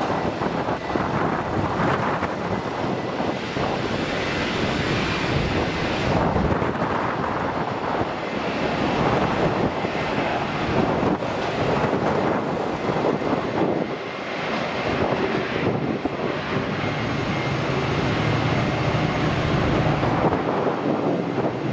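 Jet engine noise of a Boeing 767 freighter landing and rolling out, mixed with strong wind buffeting the microphone.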